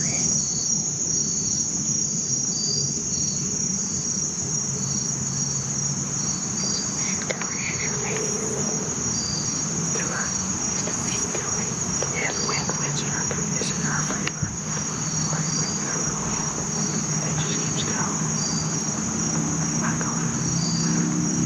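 Steady, high-pitched chorus of insects, with another insect calling in even pulses about one and a half times a second.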